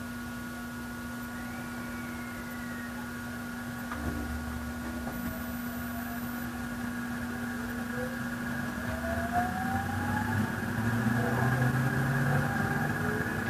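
JR East E353 series electric train heard from inside the motor car as it pulls away from a station. The IGBT-VVVF inverter drive's traction-motor whine rises in pitch from about five seconds in and grows louder as the train gathers speed, over a steady low hum.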